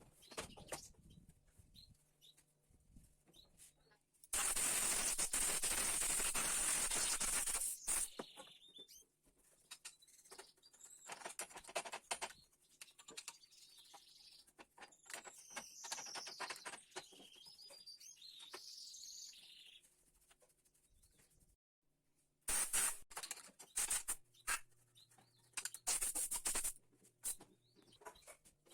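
Compressed air blowing in a loud hiss for about three and a half seconds, then again in short blasts near the end, as if dust is being cleared from a woodworking machine. Birds chirp in the background between the blasts, with light clicks of handling.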